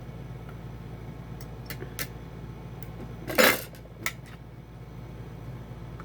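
Small metal clicks and clinks of a screwdriver and laptop parts being handled, with one louder clatter about three and a half seconds in, over a low steady hum.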